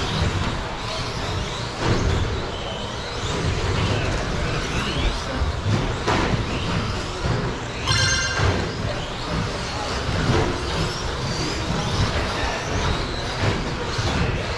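Electric radio-controlled short course trucks racing on a carpet track: motors whining up and down as they accelerate and brake, with scattered knocks from trucks hitting the track borders and a short buzz about eight seconds in. Background chatter in a large hall.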